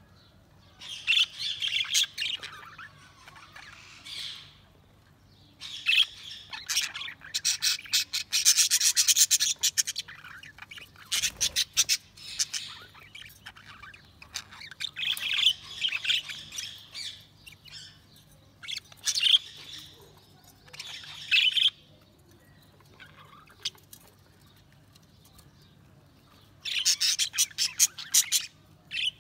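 Budgies (budgerigars) chirping and warbling in bursts of a few seconds, with rapid clicky chatter and quiet gaps between, over a faint steady low hum.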